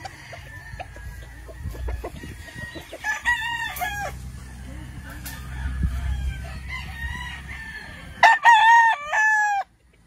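Rooster crowing: a fainter crow about three seconds in, then a loud crow near the end lasting about a second and a half.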